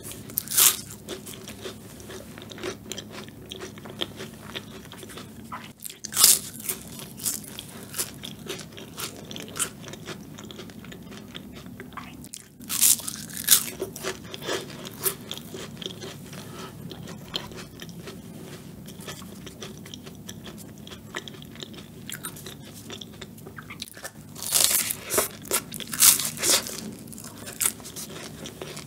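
Flaky pastry tart shells bitten and chewed close to the microphone: loud crisp crunches a few times, the biggest cluster near the end, with softer chewing and mouth clicks in between.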